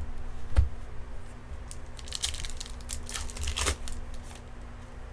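A trading-card pack's wrapper being torn open and crinkled by hand: a sharp click about half a second in, then two bursts of crinkling about two and three and a half seconds in.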